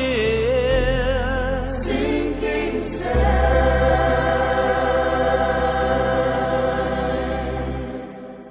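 Closing bars of a song: harmonised singing with vibrato over a steady bass, settling about three seconds in on a long held final chord that fades away near the end.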